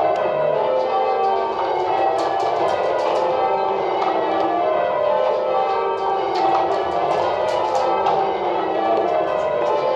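The ring of church bells at St Patrick's Cathedral, Dublin, being rung in changes: bell after bell struck in quick, even succession, the tones overlapping into a continuous peal.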